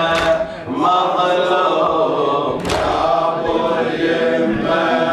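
Men's voices chanting an Arabic latmiya lament in a slow, wailing melody, with a sharp collective chest-beat (latam) landing twice, about two and a half seconds apart.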